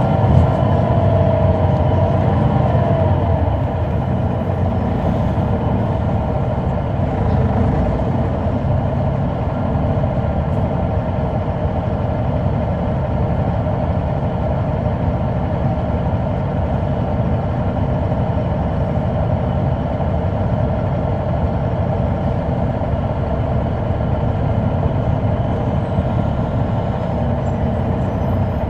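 Caterpillar C9 ACERT diesel engine of a 2004 Neoplan AN459 articulated bus running steadily under way, heard from on board. A higher whine shifts in pitch over the first few seconds, then the engine settles into a steady drone.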